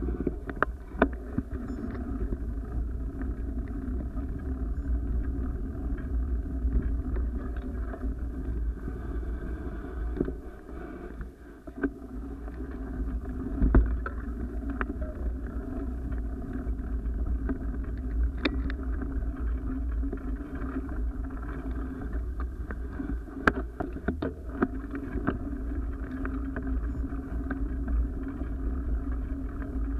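Steady low rumble of wind and motion on a moving action camera's microphone as it travels along a rough dirt trail, with scattered sharp knocks and rattles from bumps; it drops away briefly about eleven seconds in.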